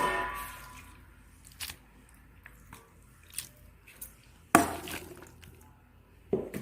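Metal cooking pan and utensils clattering: a sharp metallic strike that rings and fades over about half a second, then small clicks and taps, a louder knock about four and a half seconds in and another near the end.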